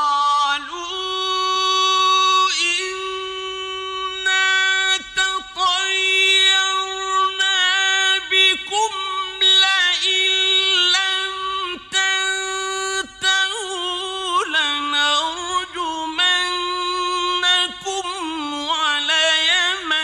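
A man's high, clear voice chanting Quran recitation in the melodic mujawwad style. He holds long notes with ornamental turns, with short breaths between phrases.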